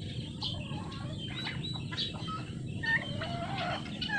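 A large flock of farm turkeys and chickens calling, with many short clucks and calls overlapping.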